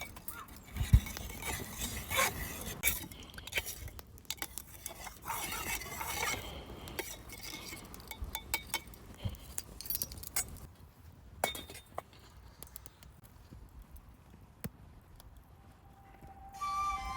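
Metal cookware and utensils clinking and knocking, a string of light clinks and taps that thins out in the second half.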